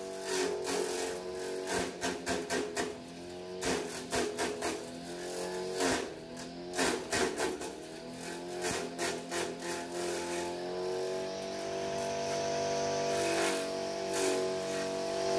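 A small chaff cutter running and chopping green fodder: a steady motor hum with clusters of quick sharp clicks as the blades cut through the stalks. The hum dips in pitch for a moment each time a bunch of fodder loads the blades, then picks up again.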